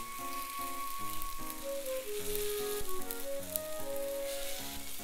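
Takoyaki batter and fillings sizzling in an oiled non-stick takoyaki pan at medium heat, with background music playing a melody of short notes over it.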